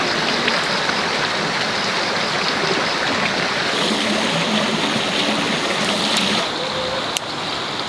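Steady rushing of water, which drops a little in level about six and a half seconds in, with a sharp click shortly after.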